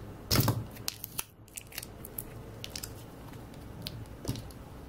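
Clear adhesive tape on a power bank's battery pack being cut and peeled off. A loud crackle comes about half a second in, then scattered short crackles and clicks, with another crackle near the end.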